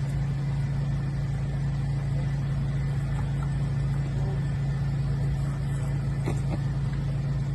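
Engine running steadily at idle, a constant low hum with a rumble beneath it.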